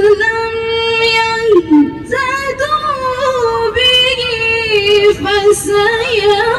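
A woman's solo Quran recitation in the melodic tilawah style: a long held high note, a short break about two seconds in, then a winding, ornamented vocal line with quick turns and wavering notes.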